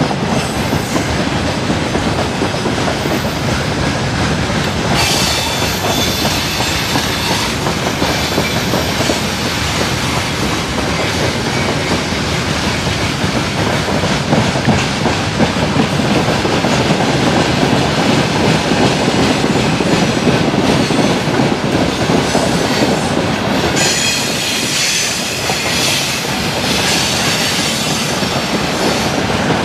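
A train hauled by the 2M62M diesel locomotive running on the track: a steady loud rumble of wheels on rails with clickety-clack, and two spells of high-pitched wheel screech, about 5 seconds in and again near the end.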